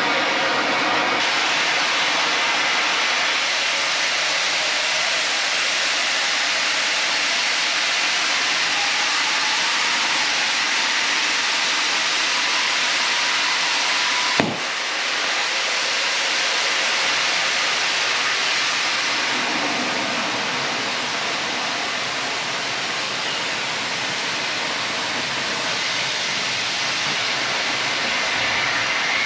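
Oxy-fuel cutting torch on a CNC table carriage, cutting thick steel with a steady hiss. A single sharp click comes about halfway through.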